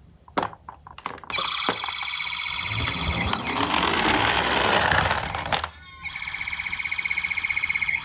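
Toy ambulance's electronic siren sounding from its built-in speaker, starting about a second in after a few clicks. It cuts out briefly past the middle, then starts again with a fast pulsing. A rushing noise swells through the middle as the toy's wheels roll down a wooden slope.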